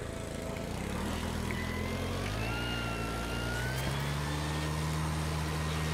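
Four-stroke Shindaiwa leaf blower running as it blows grass clippings out of a mower, its engine pitch and an airy whine climbing gradually over the first few seconds and then holding steady.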